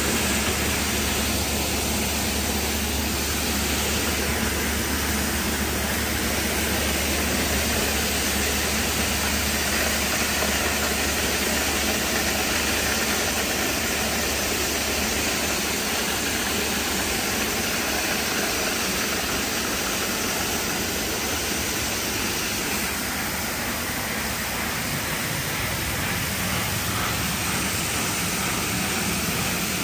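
Christ Genius Vitesse rollover car wash running, a steady rushing hiss of water spray over a car. A low hum underneath drops away about three-quarters of the way through.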